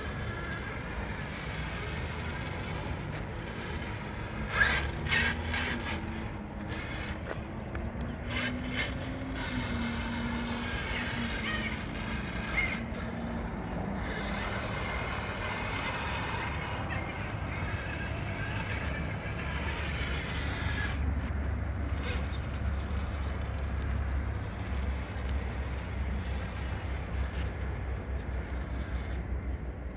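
Electric motor of a radio-controlled truck whining as it drives, its pitch rising and falling, with a few sharp knocks about five and eight seconds in.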